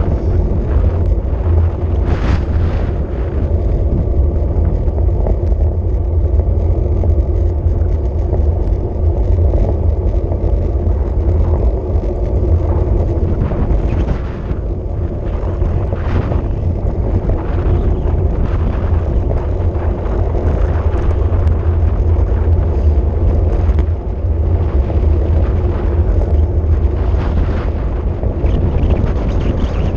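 Heavy wind buffeting on the microphone of a camera moving at speed down a road, a loud, steady low rumble with brief gusty swells.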